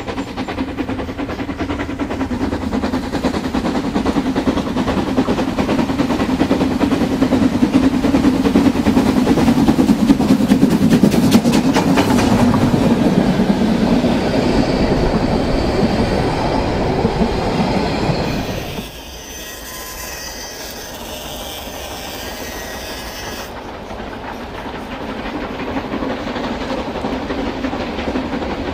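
Model railway wagons rolling along the track, a steady close-up rumble with clickety-clack over the rail joints, heard from a camera riding on one of the wagons. Just before the two-thirds mark the rumble drops suddenly to a quieter, thinner hiss for a few seconds, then builds again.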